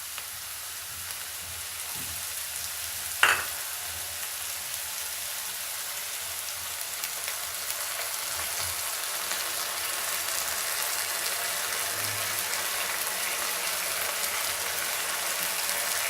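Chopped vegetables sizzling in hot oil in a kadhai while being stirred, the sizzle growing slowly louder. About three seconds in there is one sharp knock, the loudest sound here.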